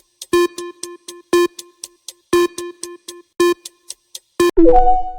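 Countdown timer sound effect: pitched clock-like ticks about twice a second, alternating louder and softer. About four and a half seconds in, a chime of three held tones rings out and fades, signalling that time is up.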